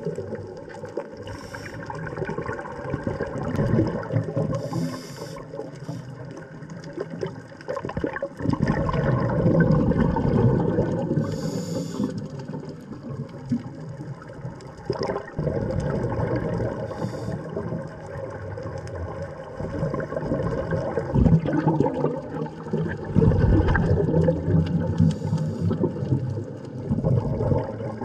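Underwater ambience picked up by a submerged camera: water sloshing and gurgling around the housing, swelling and easing unevenly, with a few brief hissy patches.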